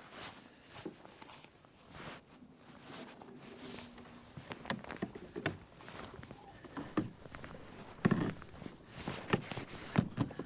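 Scattered, irregular clicks, knocks and rustling of fishing gear being handled in a plastic kayak while a brown trout is fought and landed. A heavier thump comes about eight seconds in.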